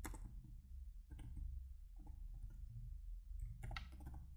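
Computer keyboard keys clicking as a short phrase is typed, in irregular groups of keystrokes, the densest about three and a half seconds in, over a low steady hum.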